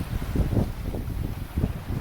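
Gusty wind rumbling on the microphone aboard a sailboat under way.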